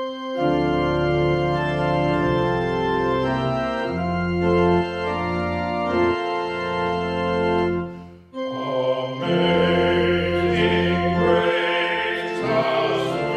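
Church organ playing slow, held chords, with a short break about eight seconds in before the chords start again.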